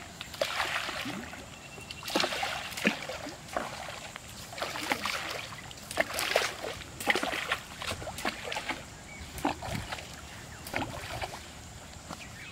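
Pond water splashing and sloshing in short irregular bursts, every second or two.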